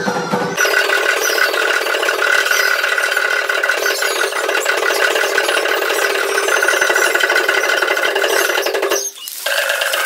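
Many dancers' ankle rattles shaking together in a dense, continuous rattle as the dancers stamp, with a brief drop about nine seconds in.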